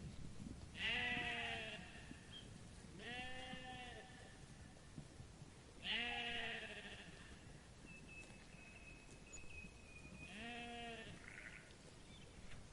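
Sheep bleating four times, each a wavering call about a second long, the first and third the loudest. A faint thin high tone holds steady for about two seconds between the third and fourth bleats.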